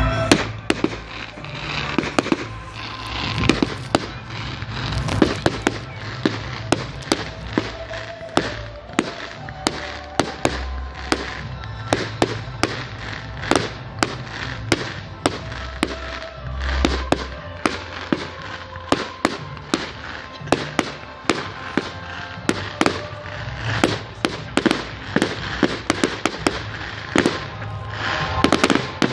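Fireworks display going off: a continuous run of sharp bangs and cracks, several a second, with louder blasts about three, five and twenty-three seconds in.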